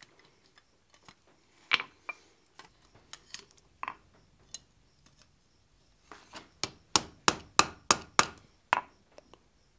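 Blacksmith's hand hammer striking hot steel on an anvil: a few single blows, then from about six seconds in a quick run of about ten ringing blows, roughly three a second.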